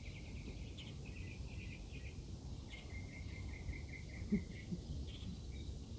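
Steady low background noise with rows of rapid, high chirping trills from wildlife, one run of evenly spaced chirps lasting about two seconds in the middle. A short low sound stands out about four seconds in.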